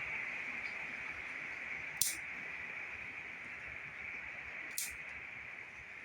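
Bonsai shears snipping through Gmelina shoots, two crisp cuts about three seconds apart, over a steady high hiss.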